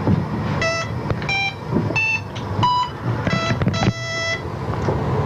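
A run of about six short electronic beeps at changing pitches, each held at one steady pitch, over a low steady rumble.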